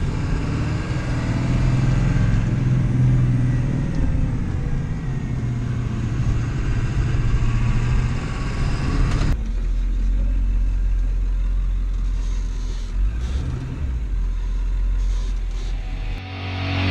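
Ford 7.3L Power Stroke V8 turbo-diesel running after the no-start repair. About nine seconds in, the sound changes abruptly to a duller, lower rumble.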